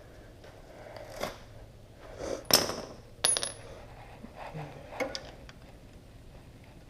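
Small metal parts clinking against each other, about four light clinks, one of them ringing briefly.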